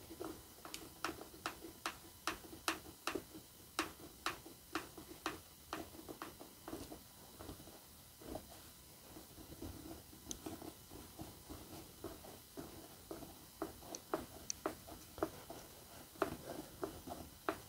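A construction screw being driven by hand into MDF and pine, heard as faint, regular clicks about twice a second. The clicks thin out midway and pick up again near the end.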